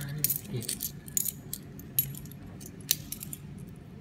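A handful of loose coins clinking against each other in a cupped hand as they are picked through, with irregular sharp clinks every fraction of a second over a low steady hum.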